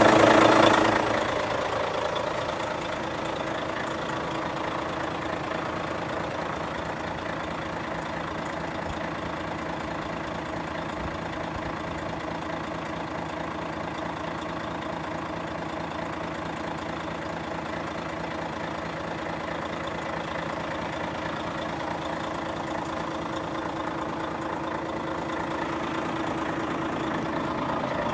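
Volvo FH500's 13-litre straight-six diesel idling steadily. A louder burst at the very start fades within about a second and a half.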